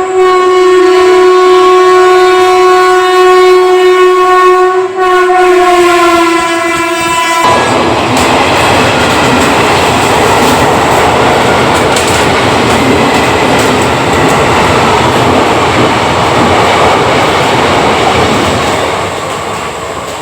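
An Indian train's horn sounds a long, steady blast with a brief break about five seconds in. The blast sags slightly in pitch and then cuts off at about seven and a half seconds, giving way to the train's continuous running noise.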